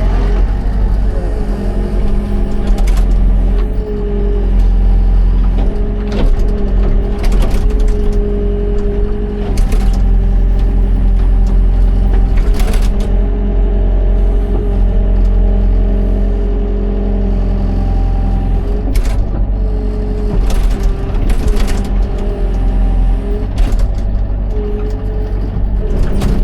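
Excavator's diesel engine running under load with a pitched hydraulic whine that shifts up and down, and about nine sharp metallic clanks spread through.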